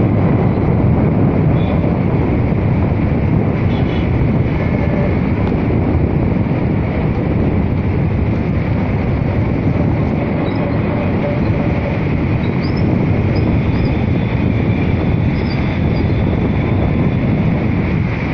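Steady rush of wind on the microphone over the low rumble of a moving vehicle and its tyres on the road, unbroken throughout.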